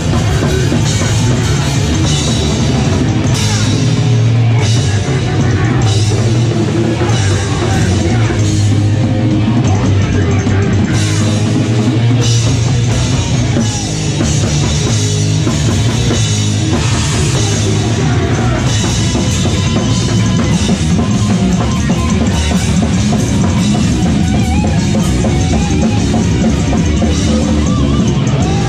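Live rock band playing loud, with a drum kit driving it and an upright bass in the band.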